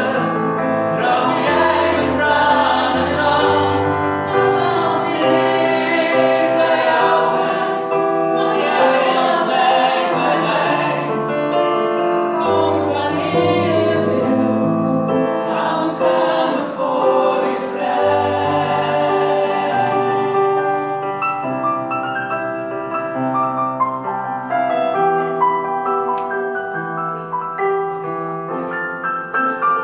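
Several voices singing a Dutch song together over electric piano; about twenty seconds in the singing stops and the piano plays on alone.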